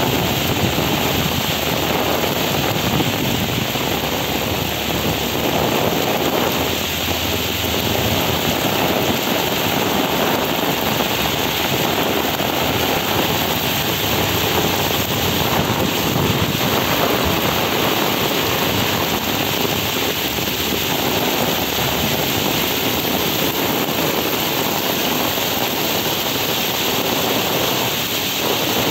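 Heavy pouring rain falling steadily onto a waterlogged paved street, a dense, even hiss with no let-up.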